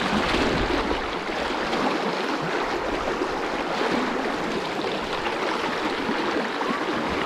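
Fast, shallow river current rushing steadily through a riffle around a wading angler.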